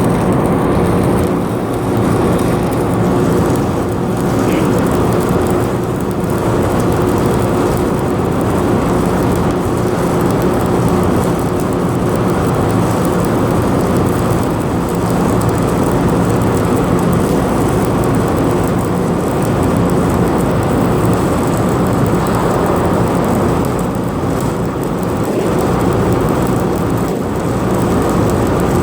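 Electric arc welding: a steady, loud crackle running on without a break, over a low machine hum.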